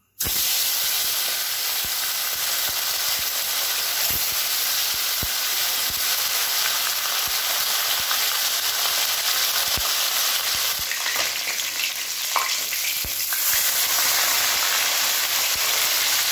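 Two whole bhola fish frying in hot mustard oil in a kadai: a loud, steady sizzle that begins suddenly, with a few light taps.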